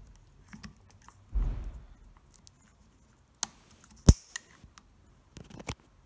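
Handling noise from wires and lever-type wire connectors at a motor's terminal box: a low rustling thump, then a few sharp clicks, the loudest about four seconds in.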